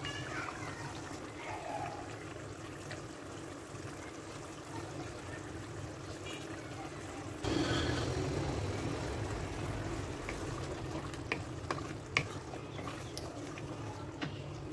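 Thick meat curry simmering and bubbling in a karahi at the stage where the oil has separated from the masala. The bubbling grows louder about halfway through, and near the end a wooden spoon knocks a few times against the pan as the curry is stirred.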